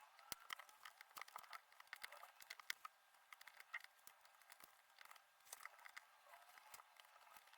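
Faint, rapid, irregular clicking and rustling of cardboard jigsaw puzzle pieces being handled and pressed together.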